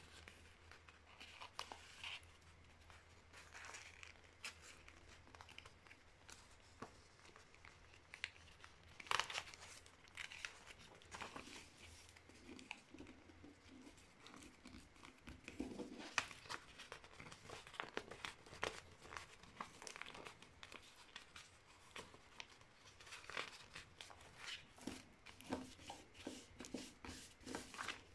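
A sheet of paper being folded and creased by hand: faint, irregular rustling and crinkling with short, sharper crease strokes, the loudest about nine and sixteen seconds in.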